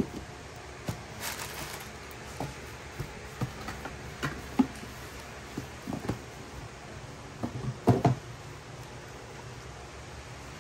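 Hands handling sneakers and a cardboard shoebox: scattered light knocks and taps, a brief rustle about a second in, and a cluster of louder knocks about eight seconds in.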